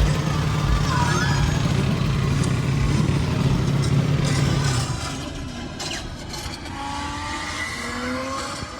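A vehicle engine running steadily, which drops away about five seconds in and leaves quieter background noise.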